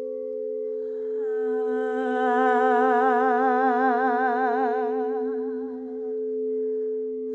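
Singing bowls sounding two steady, sustained tones, while a voice sings one long wordless note with a wide vibrato, coming in about a second in and fading out near six seconds.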